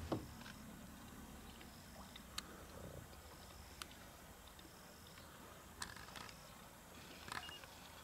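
Spotted hyena drinking from a waterhole: a few faint laps and clicks at the water's surface, spread through the quiet. A short high tone repeats about every second and a half behind it.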